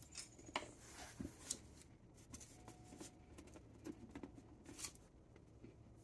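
Faint, scattered light clicks and handling rustles: small metal hardware such as washers being handled and fitted onto the seat's mounting studs.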